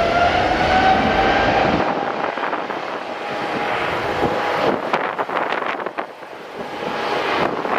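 Jet airliner engine noise with a whine rising in pitch through the first second or so. The deep rumble drops away about two seconds in, leaving a fainter whine, and strong wind buffets the microphone with scattered crackles.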